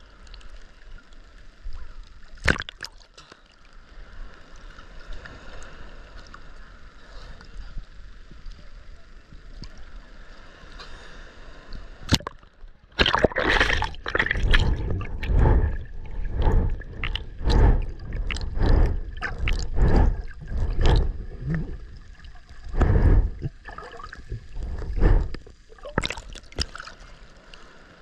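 Sea water sloshing and gurgling around a camera at the waterline that dips under and surfaces, with a few sharp splashes. About halfway through come loud, deep, muffled rushes of water about once a second, the rhythm of a swimmer's strokes in choppy water.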